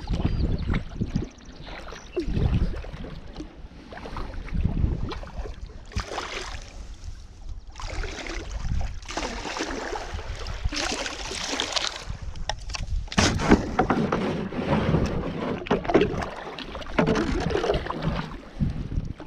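Double-bladed kayak paddle dipping and splashing in uneven strokes as a sea kayak moves through calm, shallow water, with low wind rumble on the microphone at times.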